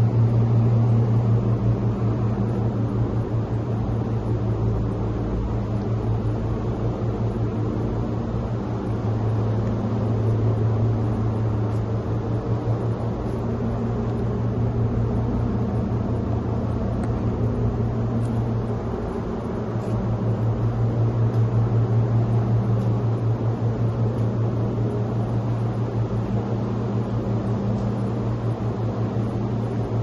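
A machine's steady low hum with a fast flutter in it, dipping briefly about two-thirds of the way through.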